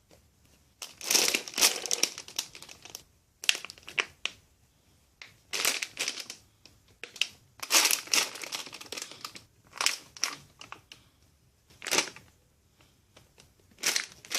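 Plastic crinkling in short bursts, about every two seconds, as squishy toys in plastic wrapping are picked up and handled.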